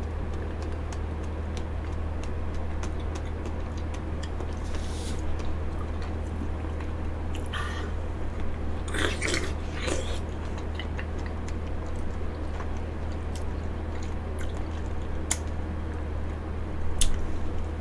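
Close-up eating sounds of a golden kiwi being scooped with a spoon and bitten from its skin: chewing, with scattered spoon clicks and a few louder mouth noises about halfway through and near the end. A steady low hum runs underneath.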